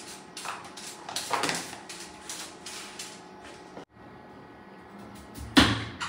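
Kitchen clatter: a quick run of light clicks and knocks from plastic containers and utensils handled on a counter, then after a break a single loud knock near the end.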